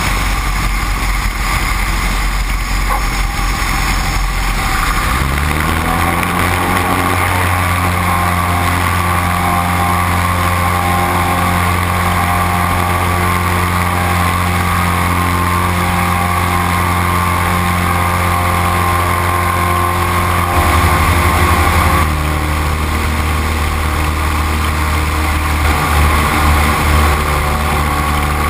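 Great Lakes 2T-1A-2 biplane's propeller and engine: about five seconds in the engine rises to full power for the takeoff roll, then runs steadily through lift-off and climb-out. A little after twenty seconds it drops to a lower, steady note as the power is brought back.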